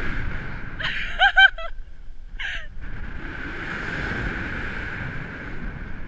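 A woman's voice on a rope swing: a quick run of short, high-pitched cries about a second in and one more brief cry a little later. Steady wind rushes over the microphone as she swings.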